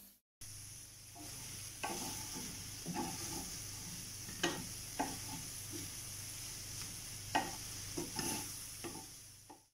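Prawns with onion, tomato and coconut pieces in masala sizzling in a stainless steel pan, stirred with a wooden spatula that scrapes and knocks against the pan now and then.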